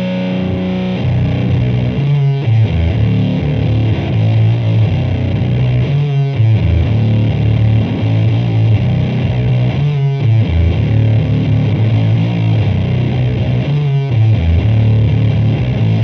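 Electric guitar played through the Does It Doom Sabbathi one-knob boosted octave fuzz pedal, with heavy fuzz, a strong low-end boost and an octave-up edge, playing a slow doom metal riff. A held chord rings for about the first second, then the riff repeats in phrases about four seconds long, each ending in a short break.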